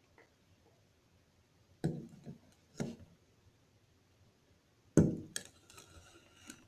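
A few separate knocks of objects being set down or handled, about two and three seconds in, then a louder one about five seconds in, followed by about a second of fainter scraping and rustling.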